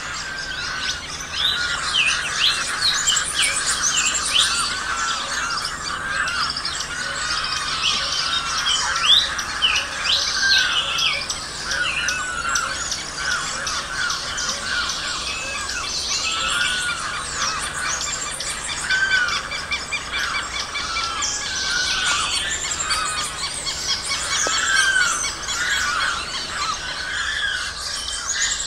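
Wetland birds calling at once in a dense chorus of overlapping chirps and whistles, with one short arching call repeated again and again.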